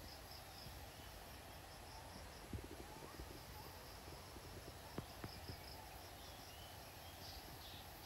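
Faint tropical forest ambience: insects chirping in a steady pulsing trill of about four to five chirps a second, with a few faint bird calls. A few sharp clicks stand out about two and a half and five seconds in.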